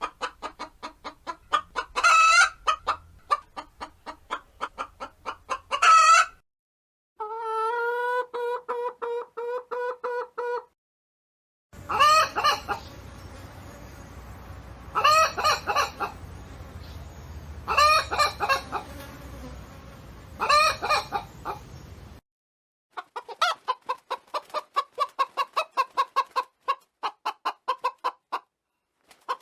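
Hens clucking in several separate recordings with short silent gaps between them. Fast runs of clucks are broken by loud, drawn-out calls, which come about every three seconds in the middle stretch.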